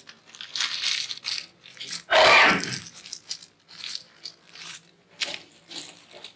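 Sanitary napkin packets being handled and pushed into a vending machine's stacking column: plastic wrappers rustle, and small clicks follow. About two seconds in there is one louder, short clatter.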